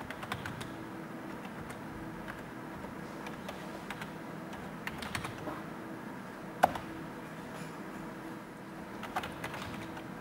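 Computer keyboard keys tapped in short, scattered clusters, with one sharper click about two-thirds of the way through.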